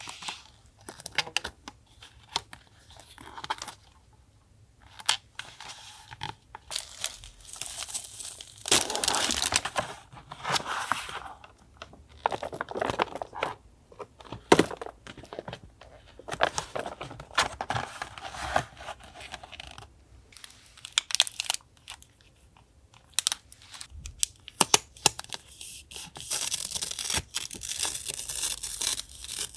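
Paper being handled close to the microphone: tearing, crinkling and rustling in irregular bursts, with small clicks and taps between them and longer stretches of rustling near the middle and near the end.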